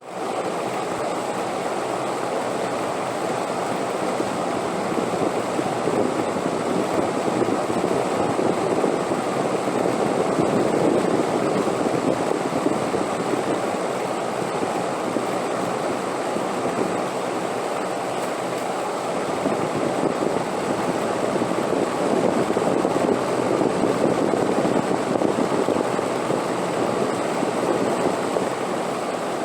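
Steady wind noise that swells and eases slowly, stronger about a third of the way in and again near the end, with a faint steady high tone underneath.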